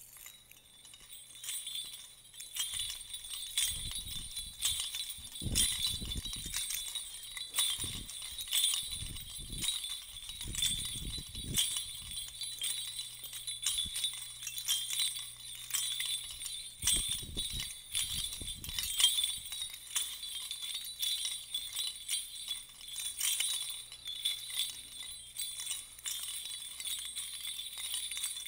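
Small metal bells on a hand-swung censer jingling steadily, the censing that opens Byzantine-rite Vespers, with a few dull low thumps in the first two-thirds and a faint low hum setting in about halfway through.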